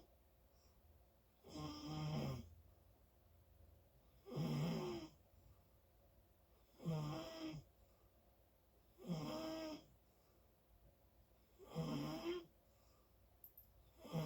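A sleeper snoring in a steady rhythm: five snores, each under a second long with a wavering pitch, about one every two and a half seconds, and a sixth starting right at the end.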